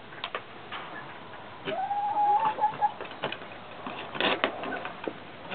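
A farmyard bird gives one long, even call about two seconds in, over scattered short clicks and taps, the loudest cluster a little after four seconds.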